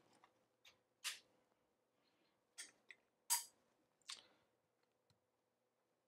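About five faint, sharp clicks spread over a few seconds, the loudest a little past three seconds in, with near silence between: switches being flipped and the lighted rocker switch's test setup being handled.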